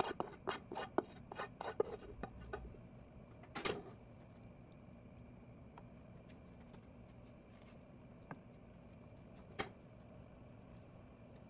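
Rapid clinks and scrapes of a utensil against cookware as chopped soup vegetables and meat are moved from pot to pot, with a louder clatter about four seconds in. After that there are only two faint clicks over a low steady background.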